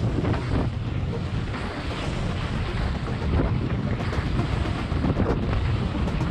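Wind buffeting the microphone of an action camera carried by a skier going downhill, a steady rumbling rush, with the skis scraping over packed, groomed snow underneath.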